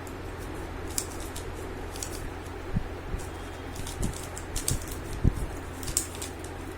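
3x3 Rubik's cube being turned quickly in a speed solve: irregular plastic clicks and clacks of the layers turning, with a few dull knocks, over a steady low hum.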